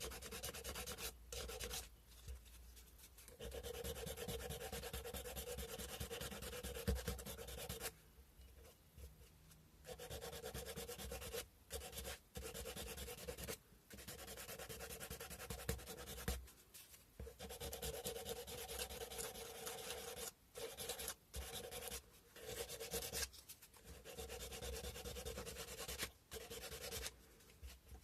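Sandpaper being rubbed by hand over a carved cow-bone fish hook: runs of steady rasping strokes broken by short pauses, the longest about eight seconds in.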